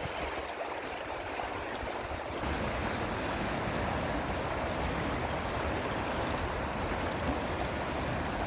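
Rushing water of a swollen, high river, a steady wide hiss that grows louder about two seconds in. A low rumble of wind on the microphone sits beneath it.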